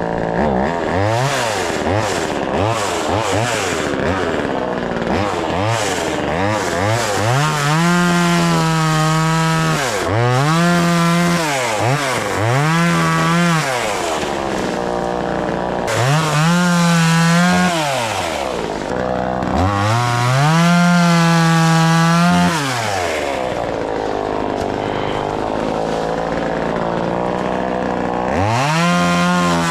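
Vevor 12-inch 25cc two-stroke chainsaw running warm. Its throttle is blipped in quick short revs at first, then it is revved up and held at high speed for a second or two about five times, dropping back to idle between. It revs up once more near the end.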